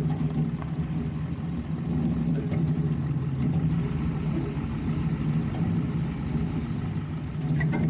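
Off-road vehicle's engine running at low, steady revs as it crawls over a dirt track, heard from under the chassis, with a few light clicks near the end.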